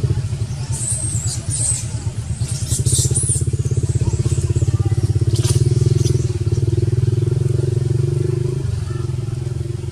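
A motorbike engine running close by with a fast, even pulse, getting louder about three seconds in and easing off near the end. A few short high squeaky chirps sound over it near the start.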